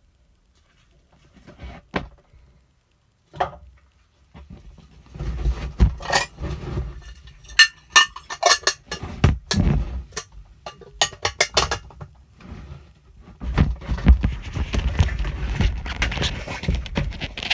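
Petri dishes and their lids clicking and clattering as they are handled and set down, a few isolated clicks at first, then a quick run of them. Near the end the clicks give way to denser rustling and knocking handling noise.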